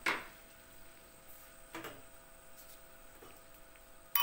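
Two short sharp ticks about two seconds apart, the first dropping in pitch, over a faint steady hum. A loud electronic beep starts right at the end.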